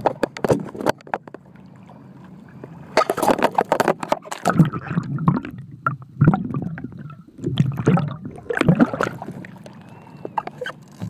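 Water sloshing and gurgling as the camera microphone dips in and out of the sea beside a kayak, with irregular knocks and clicks from handling.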